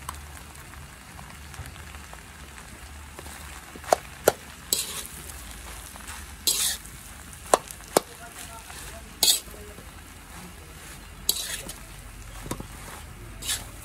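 A slotted metal spatula scraping and clinking against an aluminium wok while stir-frying rice: several sharp clinks and a handful of short scraping swishes over a steady frying sizzle.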